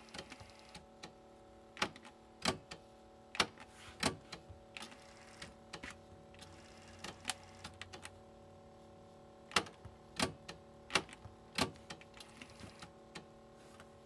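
Yamaha K-550 cassette deck's mechanical transport keys being pressed and released, a series of sharp clicks and clunks from the tape mechanism. The loud clicks mostly come in pairs a little over half a second apart.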